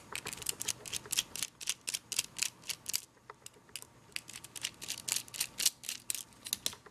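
Small Phillips screwdriver unscrewing tiny screws from a mobile phone's metal shield: a quick run of small clicks and ticks as the driver turns and re-seats, with a short pause about three seconds in.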